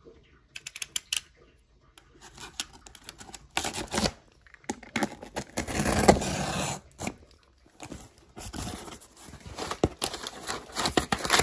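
Utility knife clicking a few times, then cutting through the packing tape on a corrugated cardboard box with rough scraping and tearing sounds, the loudest cut about six seconds in. Near the end the cardboard flaps are pulled open with rustling.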